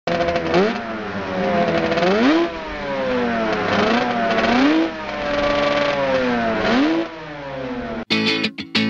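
Motocross bike engine revving, its pitch climbing sharply four times and sinking back in between. Distorted electric guitar music cuts in suddenly near the end.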